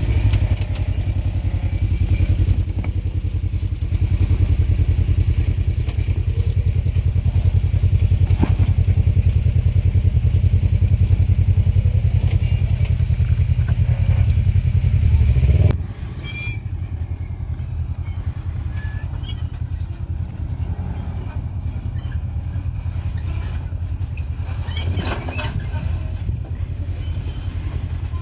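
Jeep Wrangler engine running steadily at low speed as it crawls down a rock ledge. About sixteen seconds in, the sound cuts abruptly to a quieter engine with light scattered clicks of tyres on rock.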